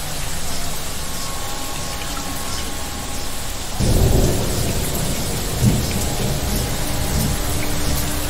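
Thunderstorm with steady rain, and a low rumble of thunder swelling up a little under four seconds in. A brief sharp crack comes soon after, over faint steady tones.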